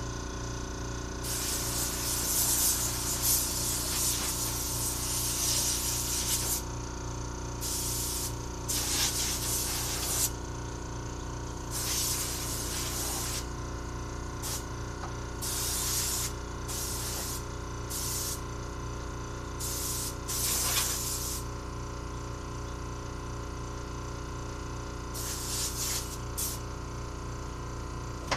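Compressed-air blowgun hissing in bursts while blowing dirt off: one long blast of about five seconds, then a dozen shorter blasts of half a second to a second and a half.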